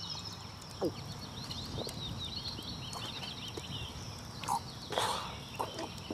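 Gulps from a cup being drained in one go, short low swallows about once a second, over field ambience of birds chirping and a steady high insect hum. A louder breathy rush of noise comes about five seconds in.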